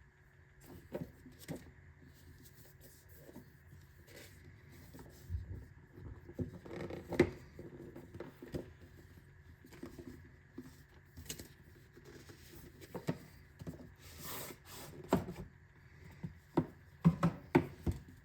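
Irregular clicks, taps and rustles of packaging being handled and opened during an unboxing, over a faint steady hum. A quick run of sharper knocks comes near the end.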